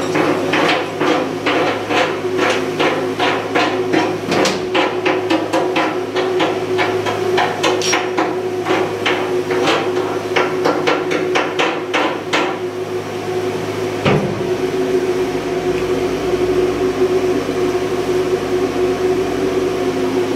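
Hammer blows, about two a second, for some twelve seconds, then they stop, with one last knock a little later. A steady machinery hum runs underneath throughout.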